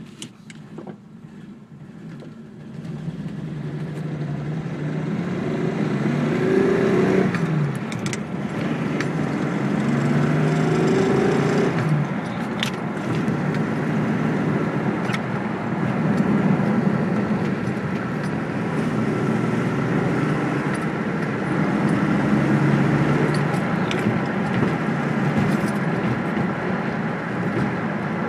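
Datsun 280Z's straight-six engine running and revved twice, the pitch climbing and dropping back each time, with a few short sharp clicks over it.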